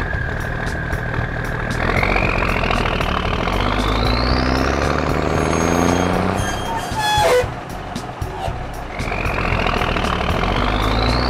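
Cartoon semi-truck engine sound effect: the engine runs and revs up in a long rising whine twice, with a short sharp burst about seven seconds in.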